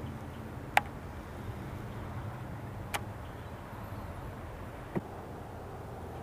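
A steady low hum with three sharp clicks about two seconds apart, the first the loudest.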